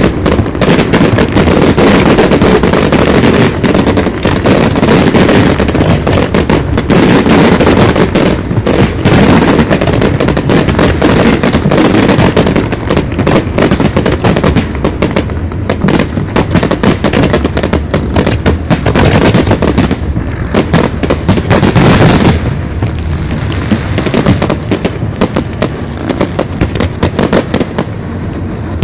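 Fireworks display: aerial shells bursting in a dense, continuous barrage of overlapping bangs. About two-thirds of the way through the barrage thins to sparser, quieter bangs.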